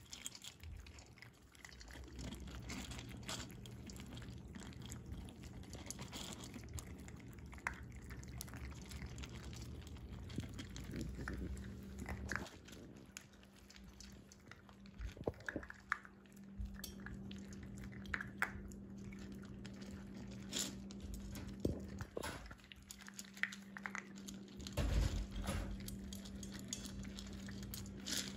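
Shetland sheepdog puppies crunching dry kibble from a stainless steel feeding bowl, with scattered clicks and clinks of kibble and teeth against the metal, over a low steady hum.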